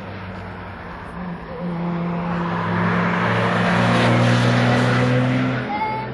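A car driven hard on a race circuit approaching and passing close by, its engine note rising and getting louder with tyre and wind noise, loudest about four seconds in. The engine sound cuts off suddenly just before the end.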